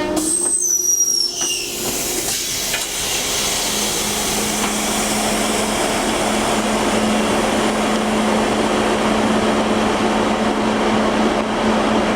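Rail vehicle's disc brakes giving a brief high-pitched squeal that slides slightly down and dies out within about the first second and a half. Then a steady rushing noise from the vehicle, joined by a steady low hum from a few seconds in.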